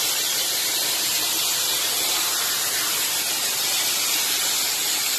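Steady, even hiss, strongest in the high range, with no distinct events.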